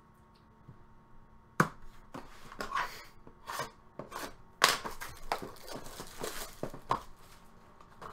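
A cardboard hobby box of trading cards being handled and opened on a tabletop. About a second and a half in, sharp knocks begin as it is moved and set against the table, along with tearing and rustling of its packaging.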